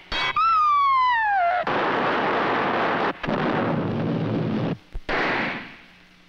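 Cartoon sound-effect barrage: a sharp bang, then a whistle sliding down in pitch for about a second, followed by two long stretches of loud, explosive noise and a shorter burst that fades away near the end.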